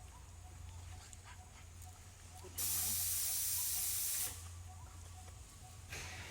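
A sudden burst of loud, even hiss lasting under two seconds, starting and stopping abruptly, over a steady low hum.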